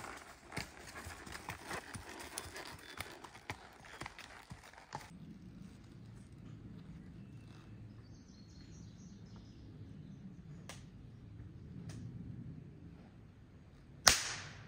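A horse's hooves clopping on a dirt trail for the first few seconds, then near the end a single sharp shotgun blast with a short echoing tail.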